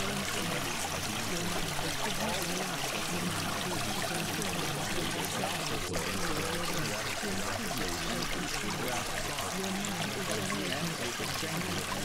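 Steady flowing-water sound like a stream or trickle, an even rushing hiss that runs without a break.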